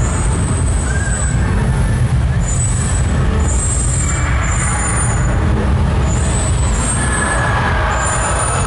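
Animatronic fountain show's effects: a loud, steady low rumble with short hissing blasts every second or so, as gas flame jets fire and fog is released.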